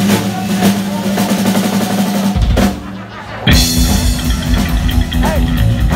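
Heavy metal band playing live, with bass guitar and drums driving a song intro. About two and a half seconds in the music drops back briefly. About a second later the full band comes in loud, with rapid bass drum and distorted electric guitar.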